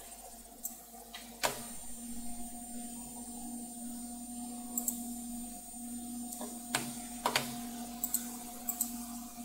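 A few sharp computer mouse clicks, about a second and a half in and twice close together near seven seconds, with smaller ticks later. Under them runs a steady low hum with a faint high whine.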